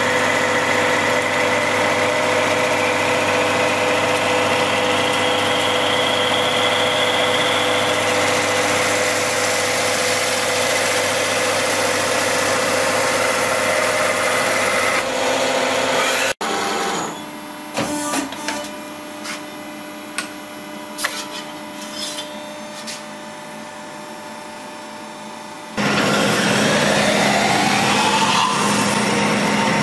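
Metal-spinning lathes running, a steady machine hum with several whining tones and a slowly rising whine. About 16 seconds in it stops suddenly, leaving a quieter stretch of scattered clicks and knocks. About 26 seconds in a loud lathe spinning sheet metal starts up, with a rising squeal as the spinning tool presses on the metal.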